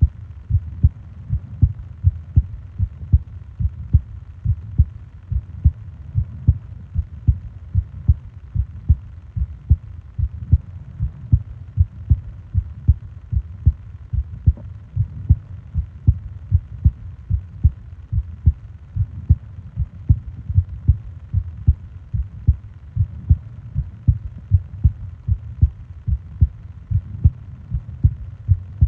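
A person's heartbeat recorded close up: low, even thumps in a steady, unbroken rhythm.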